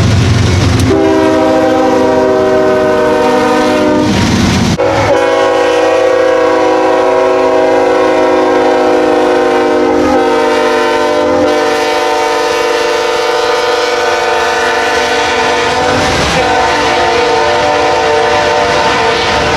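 Nathan Airchime K5HL five-chime locomotive air horn sounding a long, nearly continuous chord. There are short breaks about a second in and about five seconds in, and the chord's pitch changes after the second break.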